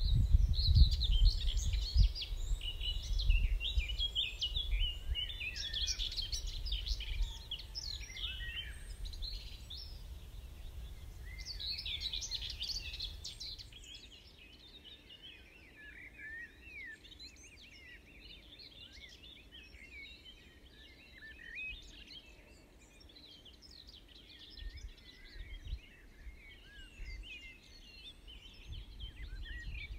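Dawn chorus: many songbirds chirping and singing together, over a low rumble. About halfway through the rumble drops away and the birdsong becomes quieter and more distant.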